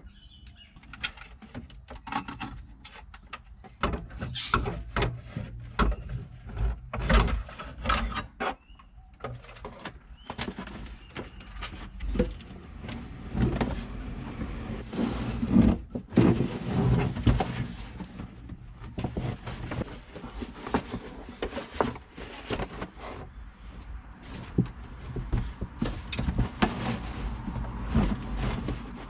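Irregular knocks, clunks and scraping from hands-on work inside a stripped car interior, with many sharp impacts throughout.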